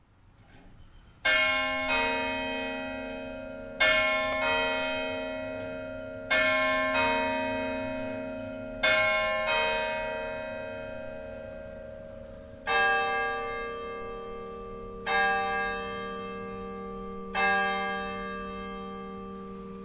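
Swinging church bells starting up for a full peal. The uploader takes them for Kurtz bells from Stuttgart tuned E♭/G/B♭/C. A higher bell strikes first, in close pairs about every two and a half seconds. From about thirteen seconds in, a deeper bell strikes every couple of seconds, each stroke ringing on.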